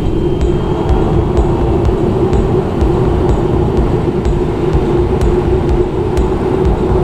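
Engine and propeller of a light single-engine aircraft running steadily at taxi power, heard from inside the cockpit as a loud, even drone.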